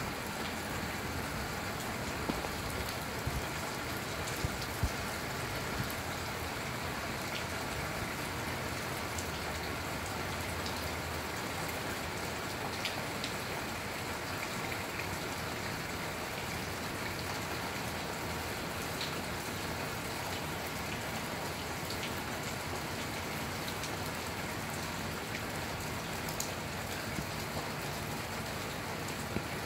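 Steady rain falling, an even hiss with scattered sharper taps of single drops, more of them in the first few seconds and near the end.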